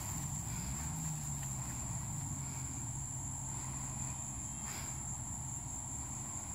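Insects droning at one steady high pitch over a low steady rumble.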